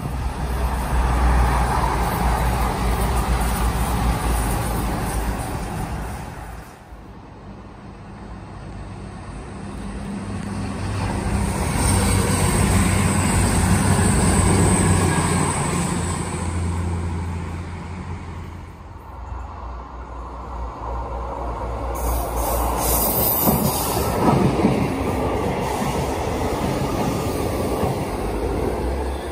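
East Midlands Class 222 Meridian diesel trains passing close by at speed: underfloor diesel engines running over the rumble of wheels on rail, with some wheel squeal. It comes in three passes, the noise dropping away twice in between.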